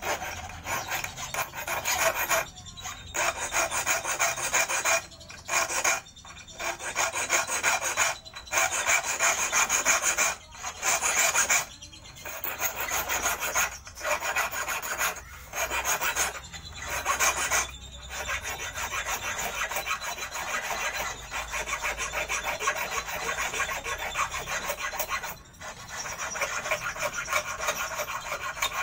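Hand file rasping on the steel wire of a homemade eel hook, sharpening its point: runs of quick back-and-forth strokes broken by short pauses, more often in the first two-thirds and then more continuous.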